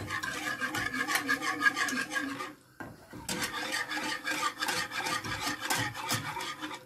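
Metal wire whisk beating milk and starch in a stone-coated saucepan, its wires rapidly scraping and rattling against the pan. The whisking stops briefly about two and a half seconds in, then starts again and stops near the end.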